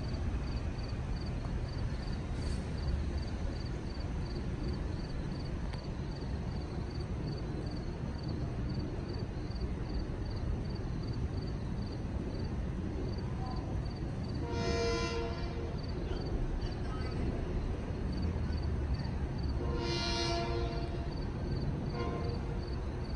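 Grade-crossing warning bell dinging steadily about two to three times a second over a low rumble, joined by two horn blasts from an approaching LIRR M9 electric train, the first about two-thirds through and the second, slightly longer, about five seconds later.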